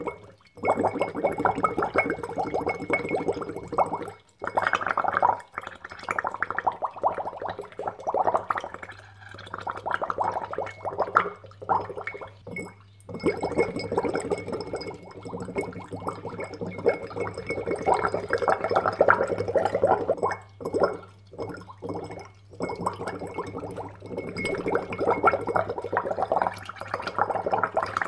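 Air blown into water, bubbling and gurgling in bursts of a few seconds with short pauses between breaths.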